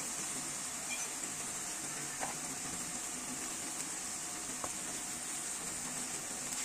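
Spiced onion masala sizzling and bubbling in hot oil in a wok, a steady high hiss with a few faint pops.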